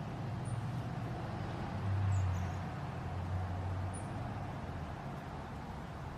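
Steady low outdoor rumble, like distant traffic, swelling briefly about two seconds in, with a few faint high chirps.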